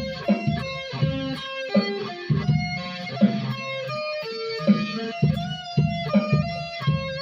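Electric guitar, a B.C.Rich M-Bird reworked into an Explorer-style body, playing a riff of picked single notes over low bass-string notes, one note after another at a steady pace.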